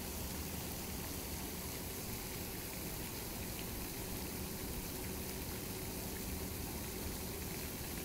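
Fountain water splashing and trickling steadily into a pond, with a faint steady hum underneath.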